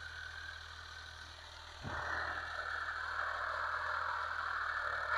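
Farm tractor engine running steadily at a distance while ploughing, a low even drone. A sharp click about two seconds in, after which the noise gets louder.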